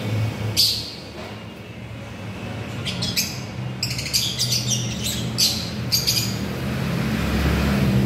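Caged lovebirds chirping: one sharp high chirp about half a second in, then a quick run of short, high chirps from about three to six seconds in, over a low steady background hum.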